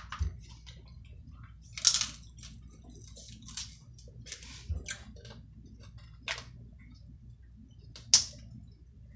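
Snow crab legs being cracked and eaten: a string of short, sharp cracks and crunches with chewing in between. The loudest cracks come about two seconds in and near the end.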